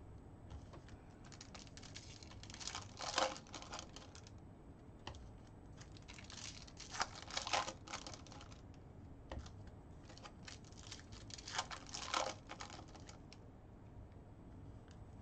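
A foil trading-card pack being torn open, its wrapper crinkling, with the cards inside handled. This comes in short clicking, crackling spells about three seconds in, around seven seconds and near twelve seconds, with faint rustling in between.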